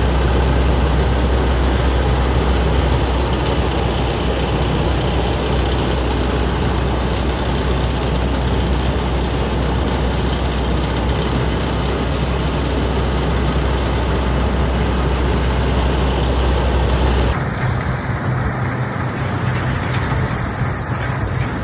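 Fortschritt E514 combine harvester running with a steady deep hum. About seventeen seconds in, the sound changes abruptly to a different, higher steady hum, as at a cut to another position.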